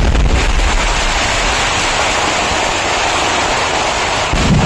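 Traditional temple fireworks finale barrage (koottu): chained firecrackers going off so fast they merge into one loud, steady roar, with a heavier boom near the end.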